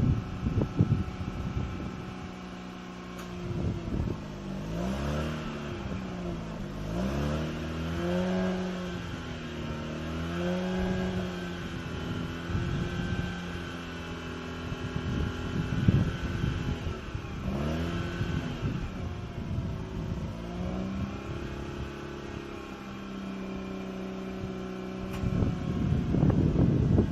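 Mazda RX-8's two-rotor rotary engine, running on a Seafoam treatment, revved up and down in a series of blips and settling back to a steady idle between them. Wind buffets the microphone at the start and again near the end.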